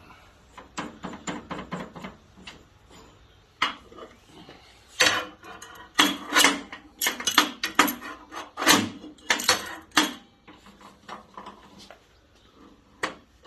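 Metal parts clanking and rattling as a stainless steel workpiece and clamps are set and tightened down for drilling, with the loudest clatter in the middle.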